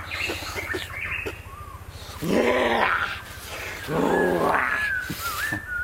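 Two loud, drawn-out growling roars about two seconds apart, each rising and then sinking in pitch. A short whistled call sounds near the end.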